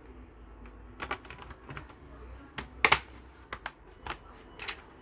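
Irregular small clicks and taps of hands and tools on a laptop's plastic case and parts, about nine in all, the loudest a quick double click about three seconds in.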